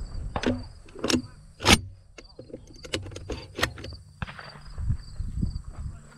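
Handling noise of a camera held in the hand: a string of clicks, knocks and rubbing, the sharpest knock about two seconds in, over a low uneven rumble.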